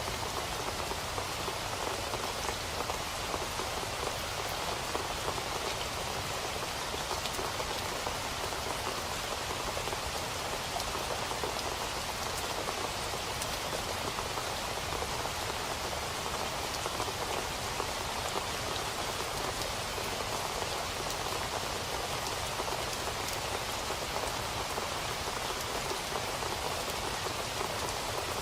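Steady rain falling on a hard surface, a dense patter of individual drops.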